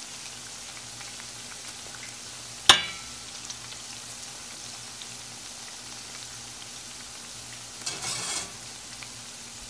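Onion pakoda fritters deep-frying in hot oil in a stainless steel pan, a steady sizzle, frying on their second side after being turned. A metal slotted spatula clinks sharply against the pan once about three seconds in, with a short ring, and there is a brief louder rustle near the end.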